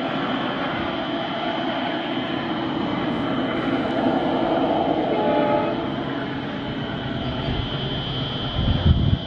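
Twin ALCO WDG3A diesel locomotives, with turbocharged V16 engines, running steadily under load as they haul a long container train around a ghat curve. A brief horn-like tone comes about five seconds in, and a loud low thump just before the end.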